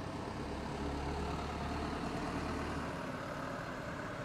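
A motor vehicle engine running with a low, steady hum that fades back about three seconds in, over steady background noise.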